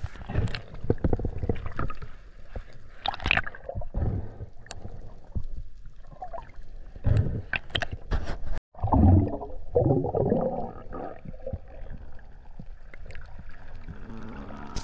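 Water gurgling and bubbling around an underwater camera, with irregular muffled knocks and clicks. The sound cuts out for an instant about two-thirds of the way through.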